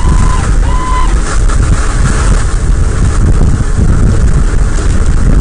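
Car driving at speed on a road, a loud steady low rumble of road and wind noise. Two short beeps sound right at the start.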